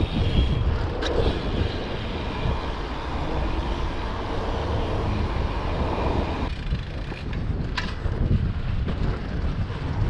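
Wind buffeting the microphone as a dense low rumble. A rushing layer above it drops away about six and a half seconds in, and there are a couple of sharp clicks.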